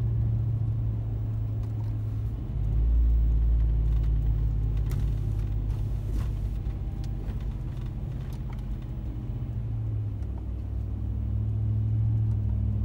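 Exhaust note of a 2017 Ram 1500's 5.7-litre Hemi V8 running through Carven Competitor mufflers while driving, a steady low rumble. About two and a half seconds in the note changes and gets louder, then settles back toward the end.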